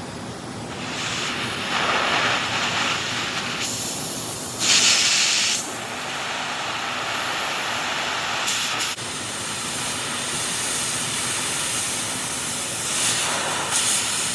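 Oxy-fuel cutting torch hissing steadily, with several louder surges of hiss as the cutting-oxygen lever is pushed, the loudest about five seconds in.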